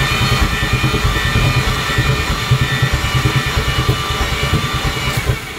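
Mazda FD RX-7's 13B-REW rotary engine cranking on the starter without catching: a steady starter whine over a rapid, even low chugging that stops shortly before the end. The owner says it sounds like it has zero compression.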